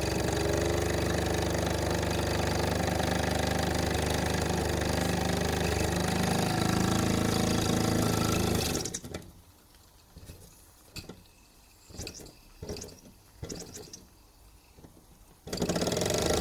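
Mamod TE1A toy steam traction engine's oscillating-cylinder steam engine running fast and steady. About nine seconds in, it stops, leaving a few faint knocks, and it picks up again near the end, switched to run in reverse.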